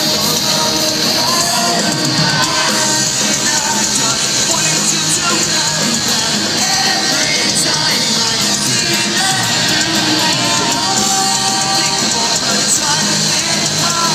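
Live rock band playing loud and steady, with electric guitars, drums and sung, partly shouted vocals, heard from the crowd in a large hall.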